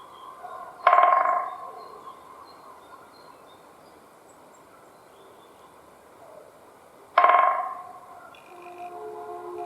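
Woodpecker drumming on a dry tree trunk: two rapid drum rolls about six seconds apart, each a quick burst of knocks lasting under a second that rings out on the wood.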